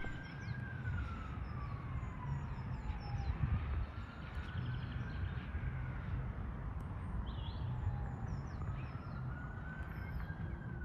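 An emergency vehicle's wail siren, rising and falling slowly in pitch about three times, over a steady low rumble.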